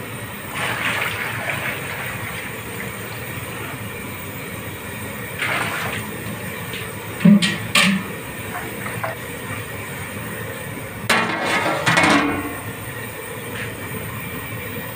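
Metal spatula stirring dal in a large aluminium pot, knocking twice sharply on the pot, then a longer clatter of metal on metal as the aluminium lid is set on, over a steady rushing noise.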